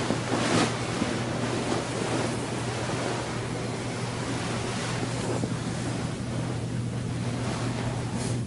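Steady rushing room noise with a low hum underneath, and brief soft rustles of bedding about half a second in and near the end.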